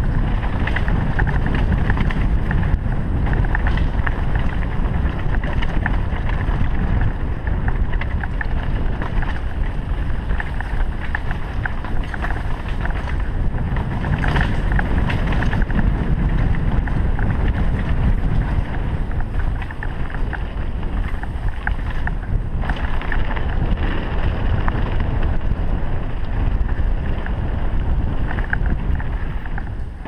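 Steady wind rushing over the microphone of a camera on a mountain bike riding fast down a dirt trail, mixed with the low rumble of tyres on dirt and a few brief rattles over bumps.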